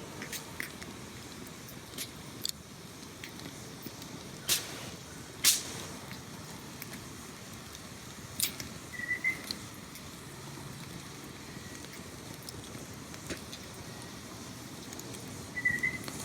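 Steady outdoor nature ambience: a constant hiss with scattered sharp clicks, and two brief high chirps, about nine seconds in and near the end.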